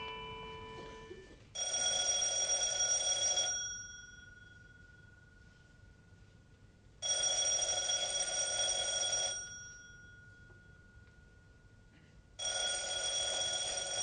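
Electric doorbell ringing three times, each ring held about two seconds, with a few seconds between rings.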